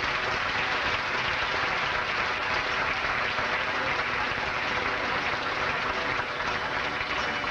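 Audience applauding steadily for an award recipient.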